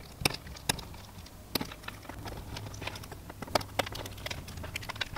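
Irregular small clicks and taps of a thin metal pick tool working terminal pins out of a white plastic gauge-cluster wiring connector, a few sharp ticks scattered through, over a faint steady low hum.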